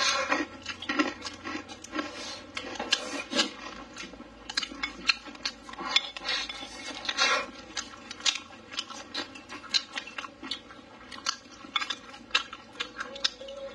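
Wooden chopsticks clicking and scraping against a bowl as rice and stew are scooped into the mouth, with close-up chewing. Many quick clicks come in irregular runs.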